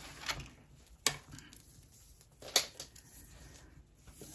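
Quiet handling noises as a cloth tape measure is laid across a crocheted panel on a table, with two short sharp clicks, about a second in and again about two and a half seconds in.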